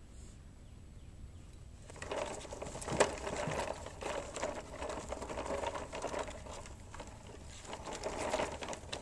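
Wheeled plastic toddler toy rattling and clattering as it is dragged over bare dirt and leaves. A rapid, uneven clicking starts about two seconds in and runs on, with one sharp, louder clack about a second later.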